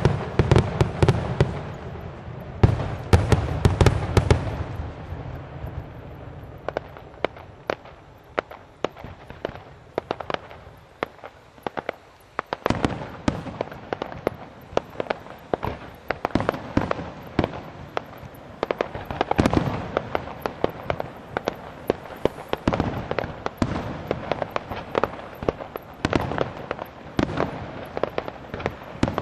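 Fireworks display: a rapid string of bangs and crackles from bursting shells. The bangs are heaviest in the first few seconds, thin out for a few seconds near the middle, then build again into dense crackling.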